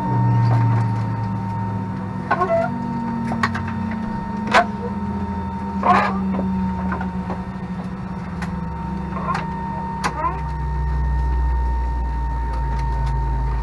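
Airbus A319 cabin after landing: steady engine and cabin hum that shifts in pitch, with scattered sharp clicks and knocks. A deeper rumble comes in about ten seconds in.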